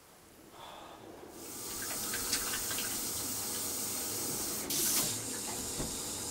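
Water rushing and hissing. It builds over the first second or so, then runs steadily with small clicks, and briefly gets louder about five seconds in.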